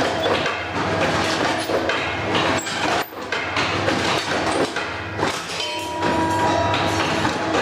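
Rebar-cutting machine running with a steady hum under frequent metallic clanks and knocks, and a ringing metal tone about six seconds in.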